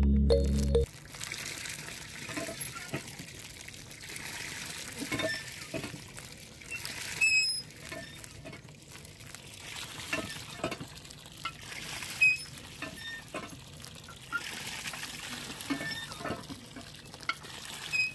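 Water pouring in a thin stream from the spout of a miniature model hand pump into a small plastic bucket, with occasional light clicks from the pump handle being worked. Background music cuts off about a second in.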